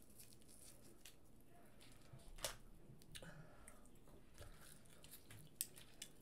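Faint eating sounds over near silence as crab legs are snapped apart and eaten by hand: a few soft, sharp cracks and clicks, the clearest about two and a half seconds in, with more about three seconds in and near the end.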